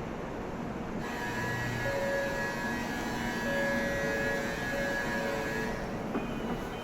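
A Shinkansen train pulling out of the platform, its electric traction motors whining with several steady tones over a low rumble from about a second in.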